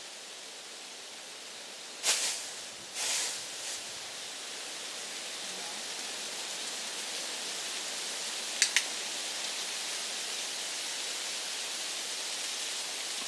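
A handheld training clicker gives one sharp two-part click about two-thirds of the way through, over a steady hiss. Earlier, two short, louder noises come about a second apart.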